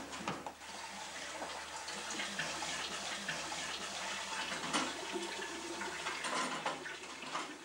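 Water running steadily from a kitchen tap into the sink, an even rushing hiss, with a few faint knocks of things handled in the sink.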